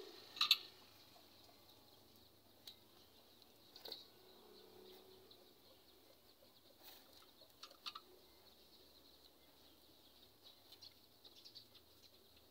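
Faint, scattered short bird chirps over a quiet background hiss, the loudest about half a second in.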